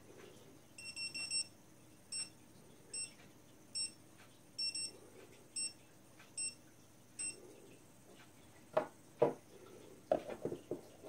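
Dogtrace D-fence 1001 collar receiver beeping: a row of short, high electronic beeps a little under a second apart, the collar's signal that it is inside the boundary wire's zone. The beeping stops about two-thirds of the way through, followed by two sharp knocks and handling noise.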